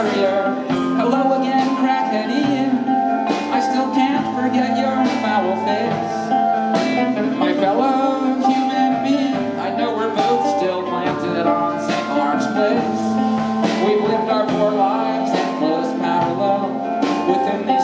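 Live rock band playing, with a strummed guitar over sustained notes and steady drum hits.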